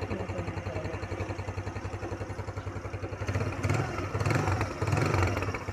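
GY6 scooter's single-cylinder four-stroke engine running with a fast, even beat, its throttle opened in a few short swells in the second half.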